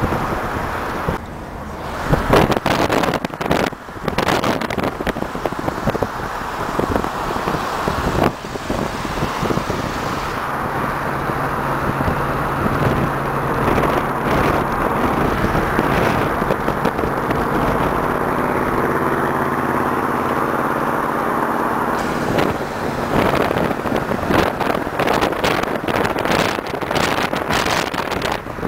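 Ford Galaxie cars driving in a convoy, engines running under steady road noise. From about ten to twenty-two seconds in a steady engine hum stands out. Near the start and in the last few seconds, irregular knocks and rushing noise break in.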